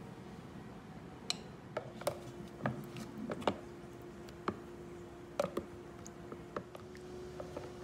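Metal spoon and silicone spatula stirring sauce in a plastic food container, the spoon clicking and tapping irregularly against the container's sides, starting about a second in.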